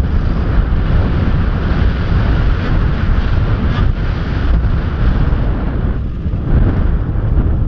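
Wind rushing and buffeting over a helmet-mounted camera's microphone while riding a snowmobile, with the sled's engine rumbling underneath.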